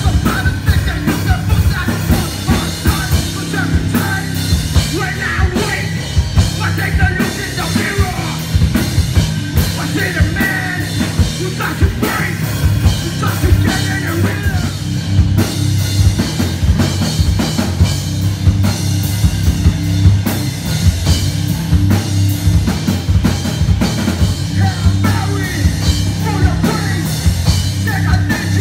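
Live rock band playing: drum kit beating steadily under electric guitars, bass and keyboard, with a singer's voice over the top.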